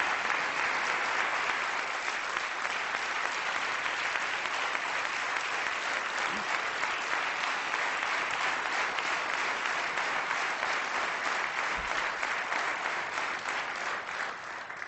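Audience applauding steadily, a dense even clatter of many hands that cuts off abruptly at the end.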